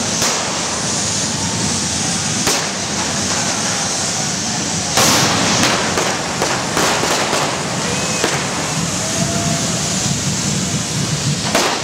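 Spark-spraying fireworks of a correfoc, hissing steadily, with sharp firecracker bangs going off at irregular intervals, the loudest about five seconds in.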